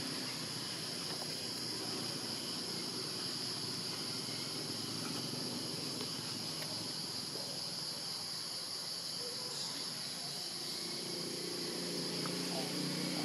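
Steady high-pitched drone of insects in the surrounding forest. A lower murmur joins near the end.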